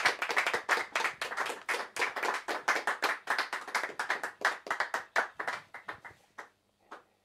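A small group of people clapping at the end of a song, the separate claps thinning out after about five seconds and dying away with a last two claps near the end.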